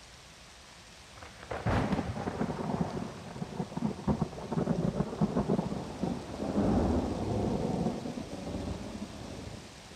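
Rolling thunder: a sudden crack about a second and a half in, then rumbling that lasts several seconds and dies away near the end, over a faint steady hiss.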